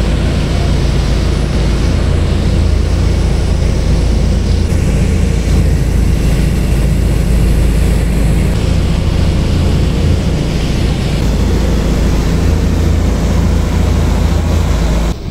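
Fishing boat's engine running steadily under way, a deep, even rumble, with water rushing along the hull and wind.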